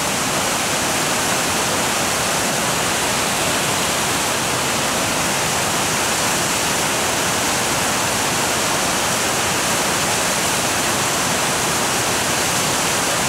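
Large waterfall on a big river, a steady, unbroken rush of falling water.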